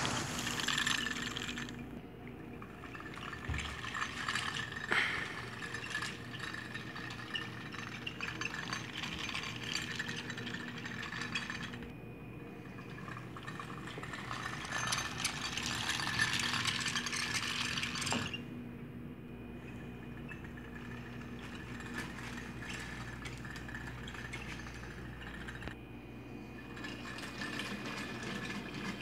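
Small toy trains pushed along by hand, their wheels and couplings rattling and clinking, over a faint steady hum.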